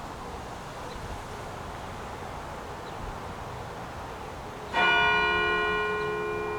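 Church clock bell struck once about five seconds in, its tone ringing on and slowly fading.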